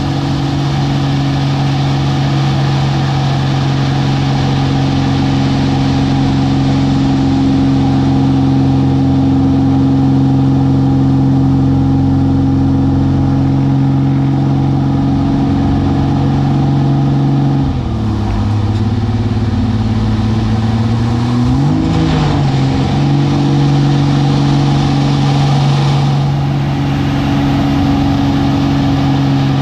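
Aerobatic plane's piston engine and propeller heard from inside the cockpit, running steadily at high power. About eighteen seconds in, the engine note drops as power comes off for a few seconds, then climbs back up.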